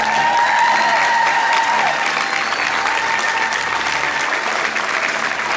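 A large audience applauding, a dense steady clatter of clapping. A high held note sounds over it for the first couple of seconds.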